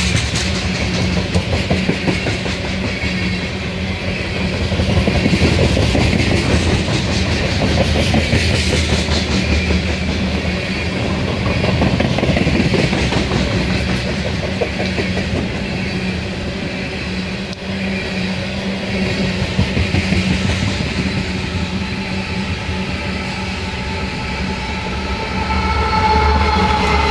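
Freight train of coal hopper cars rolling past at speed: a steady rumble of steel wheels on rail with rapid clicking over the rail joints. A steady higher-pitched tone comes in near the end.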